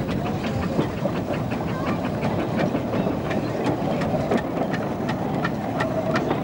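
Narrow-gauge steam locomotive hauling carriages past at low speed: a steady running noise with a quick, regular ticking, about three to four ticks a second.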